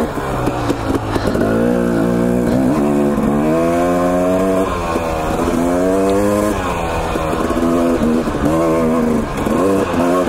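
Husqvarna TE 250 two-stroke dirt bike engine revving up and down with the throttle as it is ridden, its pitch rising and falling every second or two, with a long climb in revs about three to five seconds in.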